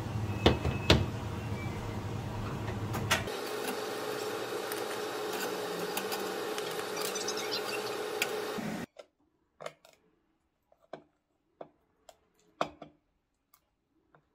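A steady hiss by the gas stove where river oysters are steaming in a covered pot, with a low rumble that drops away about three seconds in. About nine seconds in it cuts off abruptly, leaving scattered sharp clicks of hard oyster shells and a metal knife against shell and plate.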